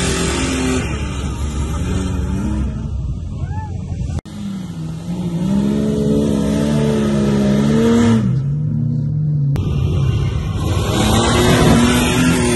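Truck engines revving hard under load on a sand dune climb: the Nissan D21 Hardbody pickup's V6, then, after an abrupt cut about four seconds in, a Jeep Cherokee, then the D21 again near the end. The engine note rises and falls with the throttle.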